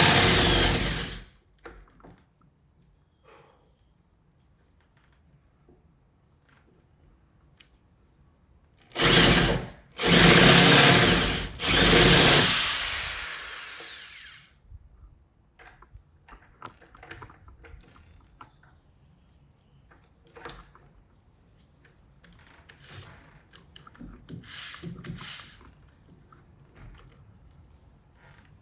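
Power drill with a 1-inch paddle bit boring into the wood of a door's latch hole in short bursts: one at the start, then three close together about nine to fourteen seconds in, the last one winding down. Small clicks and handling knocks come between the bursts.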